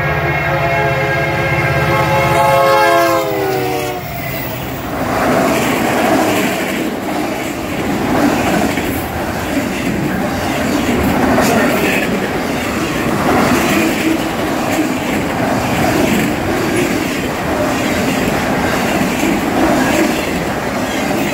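A Union Pacific freight locomotive's air horn sounds a chord of several tones at the crossing, and its pitch drops as the engine passes about three seconds in. Then comes the loud rumble and clatter of autorack freight cars rolling past.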